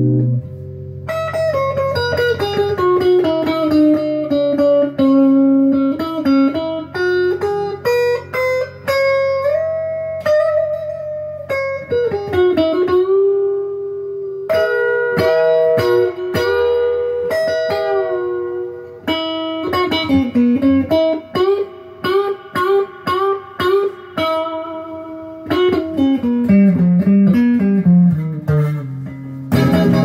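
Squier Debut Series Stratocaster electric guitar played through an amplifier: a single-note melody line picked with a pick, with notes that slide from one pitch to the next, and a descending run near the end.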